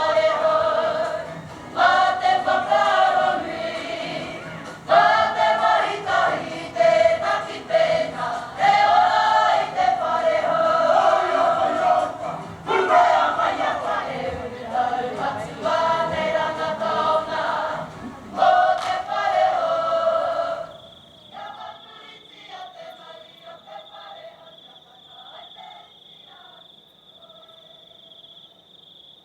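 A group of voices singing together in chorus, in phrases broken by short pauses. About twenty seconds in the singing stops, leaving a steady high cricket chirr and a few faint voices.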